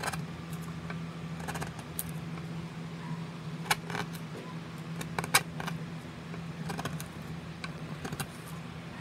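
Hand carving tool cutting and scraping into a wooden mask blank: irregular short clicks and scratches, a few sharper snaps among them, over a steady low hum.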